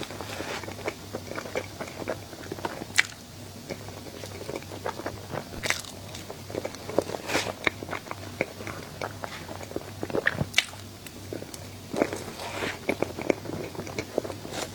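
Close-miked eating sounds: biting and chewing a dessert, with many sharp, irregular crisp crackles and several louder snaps.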